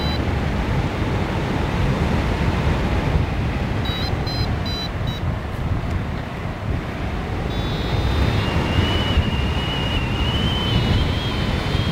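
Wind rushing over the microphone of a hang glider in flight. Over it come a hang-gliding variometer's electronic beeps: a quick run of short beeps about four seconds in, then from about eight seconds a steady high tone that wavers and rises slightly.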